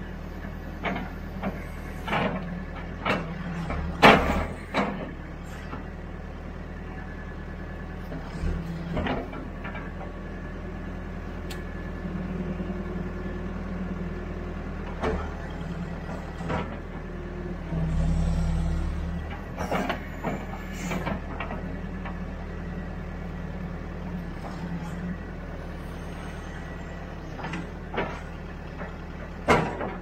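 Backhoe's diesel engine running steadily as its hydraulic boom and bucket dig, with scattered sharp clanks and knocks from the arm. The engine swells louder for a moment a little past halfway.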